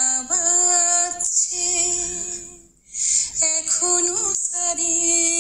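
A Bengali song: a woman singing long held notes with musical accompaniment, with short pauses between phrases.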